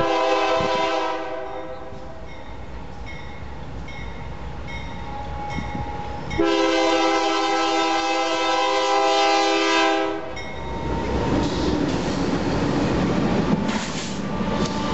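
Freight diesel locomotive's multi-chime air horn: a short blast, then a long blast about six seconds in, with a grade-crossing bell ringing faintly between. From about ten seconds in the lead BNSF locomotive passes close by, its diesel engine and wheels on the rails rumbling.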